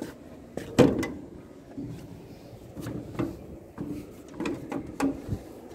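Sheet-metal compartment door on a diesel locomotive's hood being unlatched and swung open: a sharp metallic clack about a second in, followed by several lighter knocks and rattles of the latch and panel.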